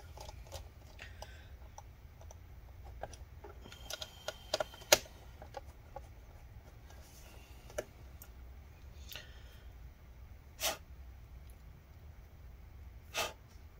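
Small clicks and ticks of a screwdriver seating and tightening laptop hinge screws, with a cluster of clicks and one sharp click about five seconds in. Two short puffs of noise come near the end.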